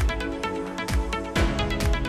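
Background electronic music with a steady kick-drum beat, about two beats a second, over sustained synth chords.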